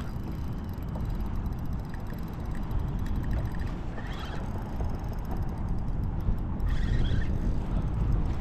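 Wind buffeting the microphone as an uneven low rumble, with a few brief hissy bursts near the start, about four seconds in and about seven seconds in.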